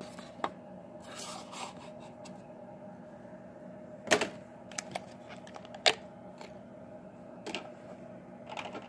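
Scattered sharp clicks and knocks with a little rustling as a hard acrylic display case is handled and opened to free a die-cast model car. The two loudest clicks come about four and six seconds in, over a faint steady hum.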